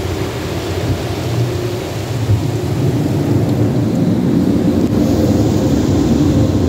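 Tunnel car wash water spraying onto the car and running over the glass, heard from inside the cabin as a steady, rain-like rush with a low rumble. It grows a little louder about halfway through.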